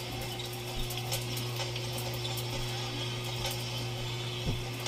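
Basketball game broadcast playing through a TV speaker: steady arena background noise under a constant low hum, with a few faint clicks.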